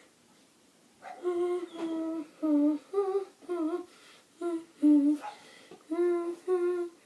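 A person humming a tune in short, separate notes, starting about a second in.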